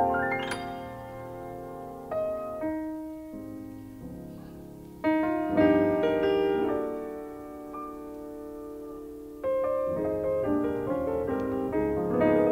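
Background piano music, slow chords that ring and fade, with new chords struck about five seconds in and again near the end.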